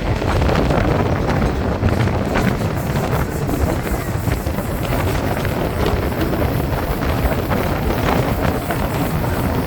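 A moving train rumbling along, with wind buffeting the microphone.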